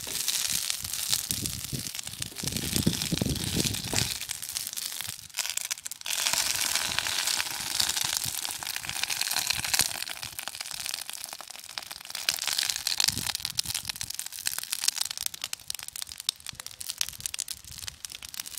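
Oiled banana leaf sizzling and crackling on a hot iron griddle, a dense crackle that dips briefly about five seconds in.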